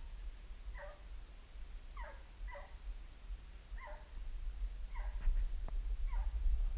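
American foxhound baying on a fox track: short, faint yelping calls, about six at irregular intervals, which is the hound giving tongue while it drives the fox. A low rumble on the microphone grows louder in the second half.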